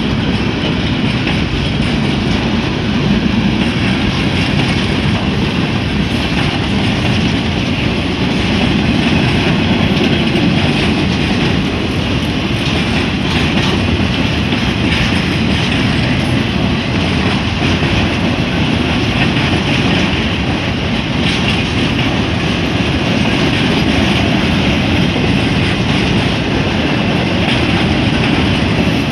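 Freight train boxcars rolling steadily past at close range, a continuous rumble of wheels on the rails with a clickety-clack of wheels over rail joints.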